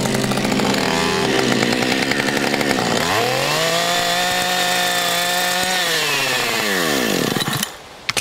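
Husqvarna 550XPG two-stroke chainsaw running. First a rattling, clattering stretch as the chain bites into a porcelain cup and shards on a wooden board. About three seconds in the engine pitch climbs, holds high, then falls away and stops shortly before the end, followed by a sharp click.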